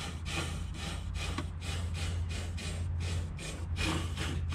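Aerosol can of Fluid Film rust-proofing spray hissing through an extension hose inside a truck's rocker panel, in quick pulses about three a second, over a steady low hum.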